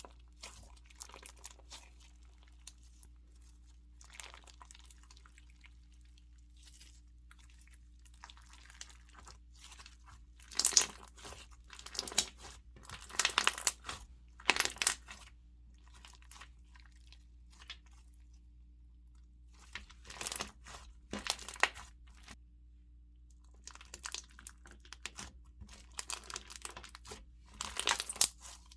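Clear crunchy slime packed with beads being pressed, folded and stretched by hand, crackling and popping in bursts with quiet stretches between. The loudest runs come about ten to fifteen seconds in and again near the end.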